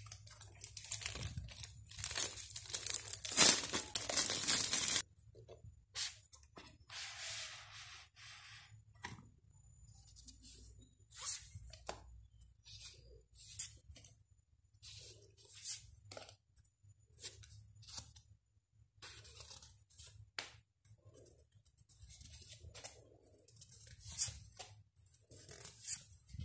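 Plastic wrapping on a stationery box crinkling and tearing as it is opened, loud and dense for about the first five seconds, then stopping suddenly. After that come softer rustles and short swishes of paper sticker sheets being handled and flipped, one every second or two.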